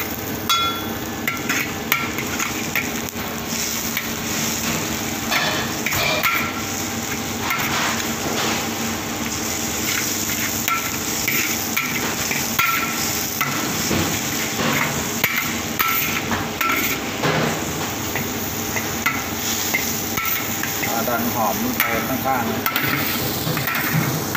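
Sliced shallots sizzling in hot oil in a wok, stirred with a metal spatula and ladle that scrape and clink against the wok many times.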